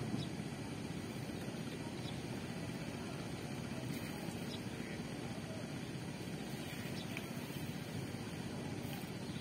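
A small river boat's engine running steadily, a low drone without a clear pitch.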